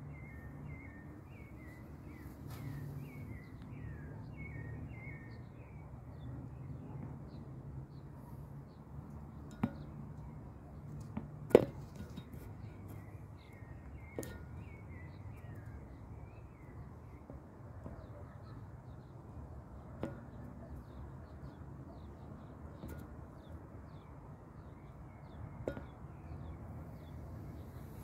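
Outdoor night ambience: a steady low hum with birds chirping faintly throughout, broken by a few sharp clicks, the loudest a little before halfway.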